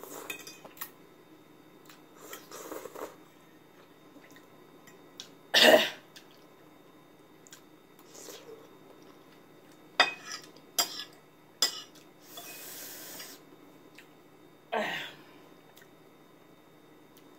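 Eating sounds from a bowl of extremely hot noodles. One loud, sudden burst of breath about six seconds in. A utensil clicks against the bowl a few times around ten to twelve seconds, and a weaker burst of breath comes near the end.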